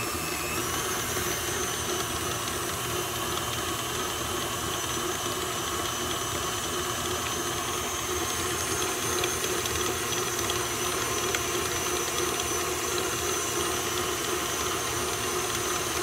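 Electric stand mixer switched on, its motor whine rising briefly as it spins up, then running steadily as its flat beater works an egg yolk into creamed shortening and sugar.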